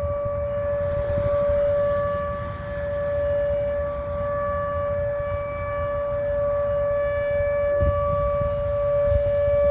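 ATI HPSS16R electronic tornado siren sounding a steady, high-pitched tone for a siren test, with no rise or fall in pitch, its loudness swelling and dipping slightly.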